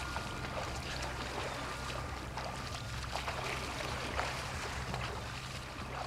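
Sea water lapping and trickling among shore rocks, with many small splashes, over a low steady hum.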